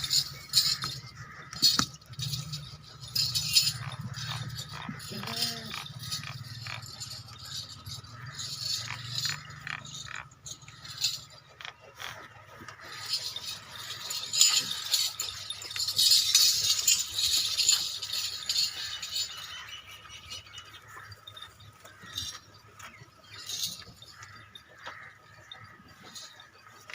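Goats moving about with repeated rattling and clinking, over a low hum that fades out about ten seconds in.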